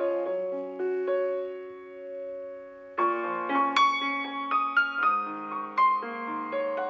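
Background piano music: a gentle melody of struck notes, with a chord left to ring and fade before a busier run of notes picks up about three seconds in.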